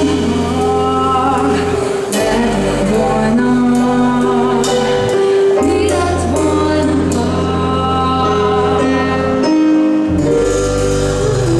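A live band playing a song: a woman sings over a drum kit with cymbals, a keyboard and long held bass notes. The bass drops out briefly twice.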